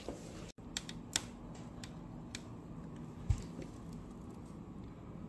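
Faint scattered clicks and light taps of small nail-art tools and a gel bottle being handled on a tabletop, with one low thump a little after three seconds.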